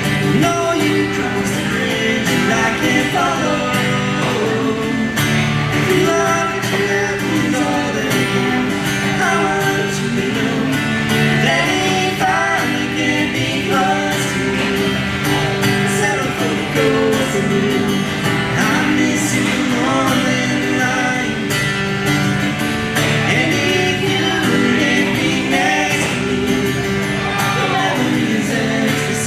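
Live band performing a song, with singing over instrumental accompaniment.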